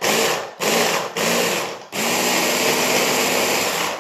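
Hand (stick) blender with its chopper bowl attachment, chopping basil leaves with olive oil and coarse salt for pesto. It is pulsed in three short bursts, then runs steadily from about halfway through.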